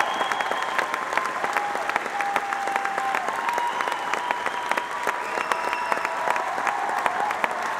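Large theatre audience applauding steadily, with dense clapping throughout, over long held musical notes that change pitch every second or two.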